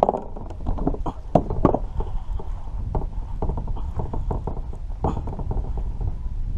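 Irregular knocks and taps against a kayak, a few of them sharp, over a steady low wind rumble on the microphone.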